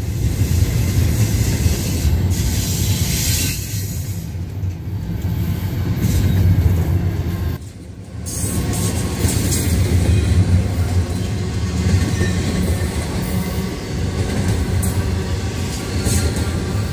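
Intermodal freight train of double-stack container and trailer cars rolling past, a steady rumble of wheels on rail. The level dips briefly a little before eight seconds in.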